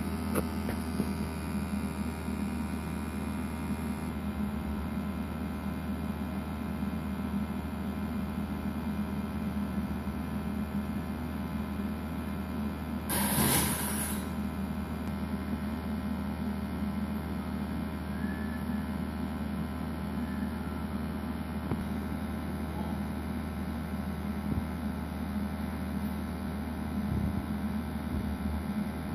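Steady low hum running throughout, with one short burst of noise lasting about a second near the middle.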